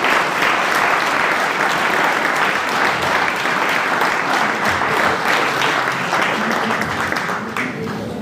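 Audience and officials applauding after a speech, a dense steady clapping that thins out near the end.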